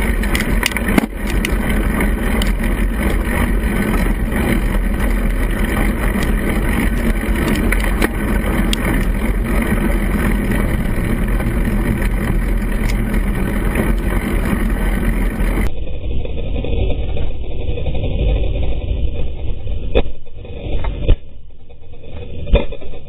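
Continuous gurgling rush from a GoPro mounted on a bicycle's frame, riding over a wet path, with many small clicks and knocks. About two-thirds of the way through it turns duller and dips, with a few louder knocks near the end.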